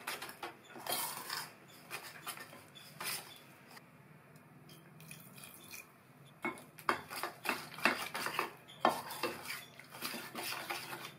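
A metal spoon scrapes and clinks against a stainless steel bowl while stirring thick flour-and-spice batter. The strokes go quiet for a couple of seconds about midway, then pick up again more steadily.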